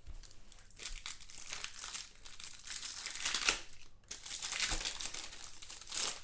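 A trading-card pack's wrapper being torn open and crumpled by hand, crinkling irregularly, loudest about three and a half seconds in and again near the end.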